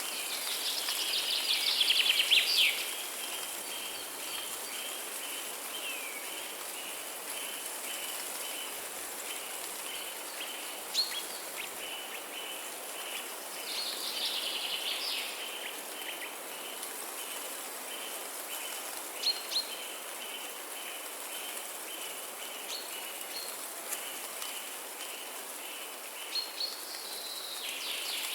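Rainforest ambience: a steady hiss of rain and wind, with a high chirping that pulses at an even rhythm throughout. Bird calls break in a few times, loudest about two seconds in, with short sharp calls around the middle and near the end.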